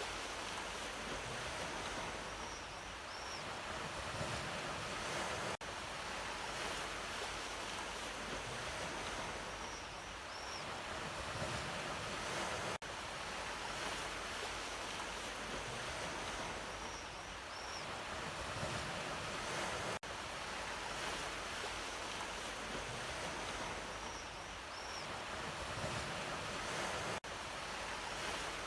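Sea waves washing on the shore as a steady surf, played as a loop that repeats about every seven seconds with a brief dip at each join. A faint, short double chirp sounds high up once in each repeat.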